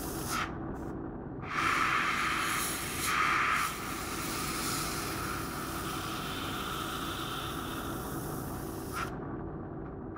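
Airbrush hissing as it sprays paint, with two louder bursts about one and a half and three seconds in and fainter hiss between, over a steady low background noise.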